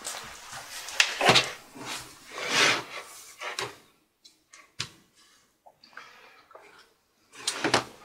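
HP Notebook 15-ab168ca laptop, bottom cover off, being lifted and turned over on a table: a series of plastic scrapes and knocks, with a sharp click about five seconds in and another scrape near the end.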